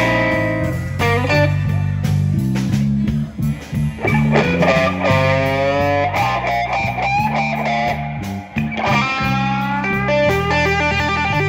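Live blues band playing a slow blues: an electric guitar plays lead lines with bent, wavering notes over electric bass and drums.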